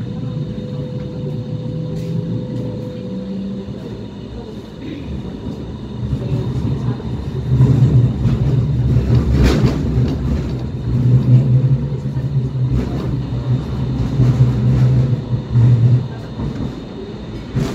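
Hong Kong Light Rail car running along its track, heard from inside: a steady low rumble of motors and wheels that grows louder about halfway through as it speeds up.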